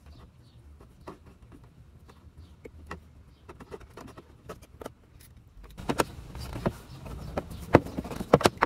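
Hands working on a scooter's plastic parts: faint scattered clicks as the spark plug cap is pushed back on, then, from about six seconds in, louder plastic clacks and knocks as a body panel is pressed back into place.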